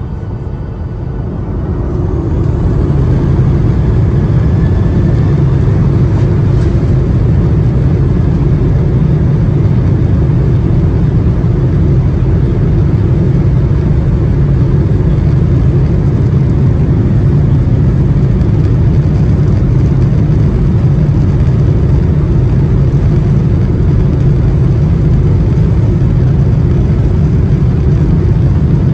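Boeing 737-800's CFM56 jet engines spooling up to takeoff thrust, heard inside the cabin over the wing: a rising whine and a climb in loudness over the first few seconds. The engines then run steadily loud through the takeoff roll.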